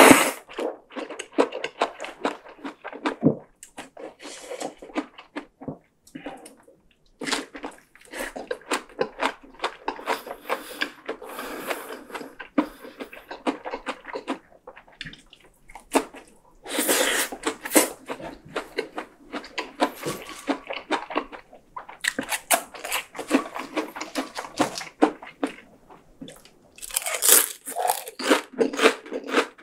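Close-miked eating: wet chewing and crunching of rice noodles, spring rolls and fried rice paper, with loud noodle slurps about halfway through and near the end.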